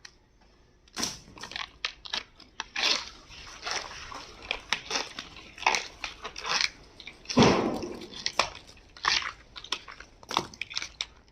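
Irregular crunching and clicking as Anaconda cable is taken apart, a quick run of sharp snaps with a longer, louder crunch about seven and a half seconds in.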